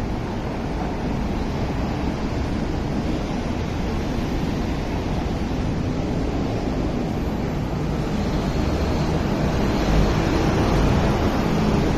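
Steady low rushing outdoor noise, with no distinct events, swelling slightly near the end.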